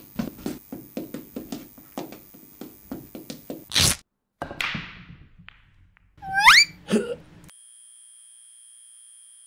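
A quick run of knocks, about four a second, ends in a loud crash; a hiss, a whistle sliding upward and a couple of thuds follow, and then a steady high-pitched electronic tone sets in.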